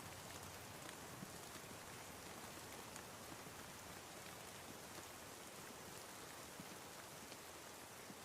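Steady, quiet rain with faint scattered drops pattering.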